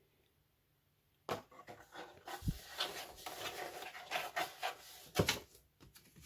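Paper leaflets and cards being handled on a table: rustling, with a few sharp knocks and a dull thump.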